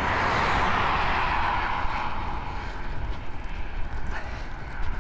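A motor vehicle passing on the adjacent dual carriageway: a rush of tyre and road noise that is loudest at the start and fades away over about three seconds. Under it is the steady low rumble of wind on the microphone as the bike rides along.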